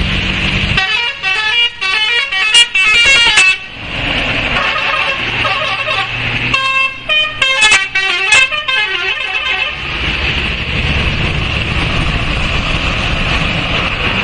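A bus's musical 'telolet' multi-tone horn plays two quick tunes of stepping notes, each about three seconds long: the first about a second in, the second around the middle. A low engine rumble runs underneath and grows stronger near the end.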